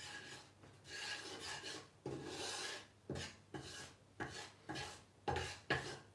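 Wooden spatula scraping over the bottom of a frying pan as it spreads a spoonful of oil, in a run of rasping strokes that come about twice a second in the second half.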